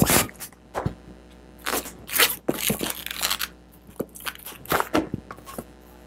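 Inflated white 260 latex twisting balloon being handled and knotted by hand. The latex gives irregular rubbing, squeaking and crackling noises, a few louder ones about two seconds in and again near five seconds.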